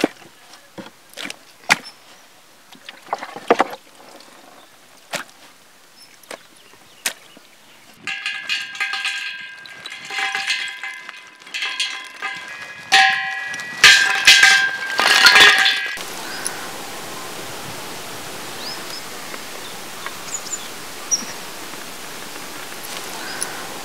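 Lumps of charcoal tipped from a woven plastic sack, clattering onto the ground and against the metal bars of a grill frame with some ringing of the metal. Before it come a few scattered light clicks and knocks; after it comes a steady hiss.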